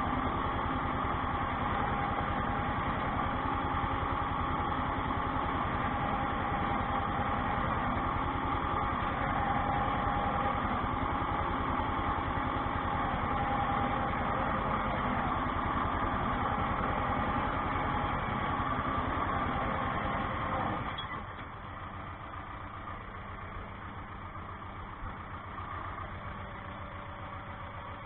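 Ursus tractor's diesel engine running steadily under load as it pulls a potato ridger through the rows, heard inside the cab. About two-thirds of the way through it is throttled back and drops to a quieter, lower run.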